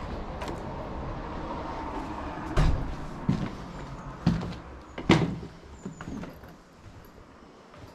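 A steady low rumble, then a handful of sharp knocks and clunks, the loudest about five seconds in.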